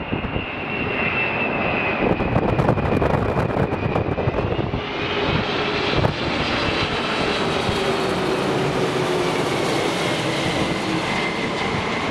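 Boeing 747's four jet engines on landing approach passing low overhead: a steady engine noise with a high fan whine that swells as the jet comes over about halfway through, then a lower tone that slowly falls in pitch as it moves away.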